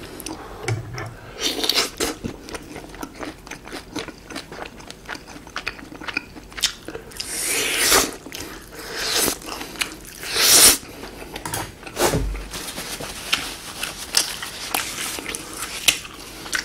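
Close-up eating sounds: grilled chicken skewer pieces bitten off the skewer and chewed, with many quick wet mouth clicks. A few louder, longer bites come through, the loudest about eight and ten seconds in.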